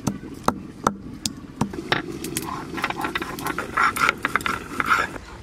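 Whole garam masala spices (cardamom pods, cinnamon) being crushed on a wet stone grinding slab with a stone muller. About six sharp knocks come roughly every half second at first. From about two and a half seconds in, the stone grinds back and forth across the slab with a rough, rhythmic scraping.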